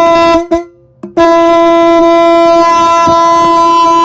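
Solid-bronze Navy ship's horn, electric, running on 12 volts DC, sounding a loud, steady, single-pitched blast. The blast cuts off about half a second in, a click follows, and a second long blast starts just over a second in. The horn is working properly.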